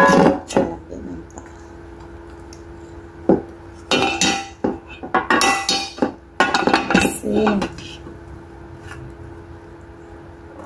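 An enamel plate set down with a knock, then a stainless steel bowl and wooden spoons clattering against the enamel plate in a run of clinks as saucy noodles are tipped out.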